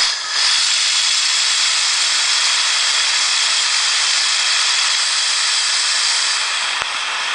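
Compressed air hissing from a high-pressure air tank through its regulator into a small air-driven generator, switched on abruptly and running steadily, easing slightly near the end. A single sharp click sounds near the end.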